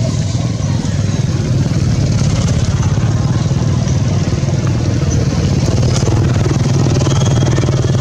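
Steady low hum of a running engine, holding at an even level.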